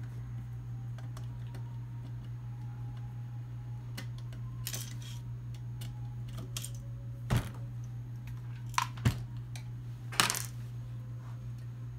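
A few sharp metallic clicks and short clatters in the second half, as small screws and a screwdriver are handled and set down on a wooden desk, over a steady low hum.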